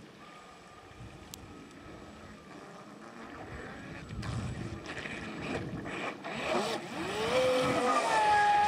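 Radio-controlled speedboat with a brushless electric motor running on a lake: a faint thin whine at first, then louder from about halfway, with the motor's pitch gliding up and holding as the throttle changes, over the hiss of the hull and spray. Wind noise on the microphone.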